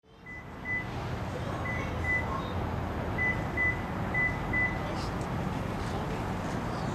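Yamaha YZF-R1's crossplane inline-four idling through a Yoshimura exhaust, a steady low rumble. A short high electronic beep sounds in pairs, four times, over the first five seconds.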